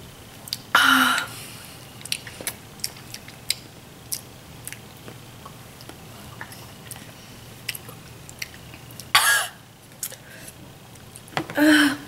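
Two girls sucking and chewing sour lemon slices: small wet mouth clicks and smacks throughout, broken by three loud short coughs, about a second in, around nine seconds in and near the end, as the sourness hits.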